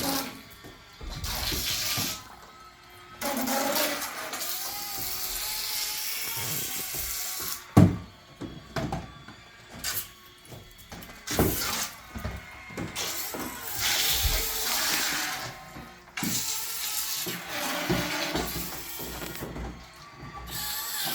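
Water churning and splashing in uneven surges with short lulls, stirred up by a radio-controlled toy whale and toy shark driving through a hot tub.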